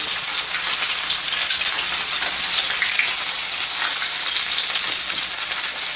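Hot oil sizzling steadily around two skin-wrapped chicken galantine rolls searing in a non-stick frying pan, as the skin browns and seals.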